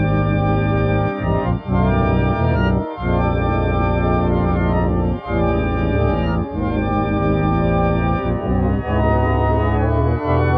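Sustained organ-like keyboard chords with a heavy low end, held for a second or two each and changing at short dropouts. An edited sound effect retuned to G major.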